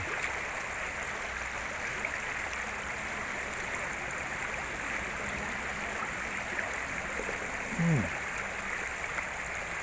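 River water rushing steadily, with one short falling vocal sound near the end.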